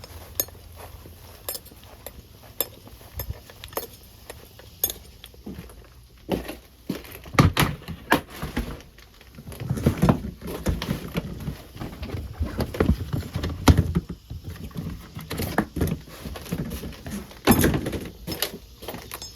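Serrated knife cutting and scraping wax honeycomb out of a cinder block, with irregular scrapes, knocks and clicks that grow louder and busier from about six seconds in.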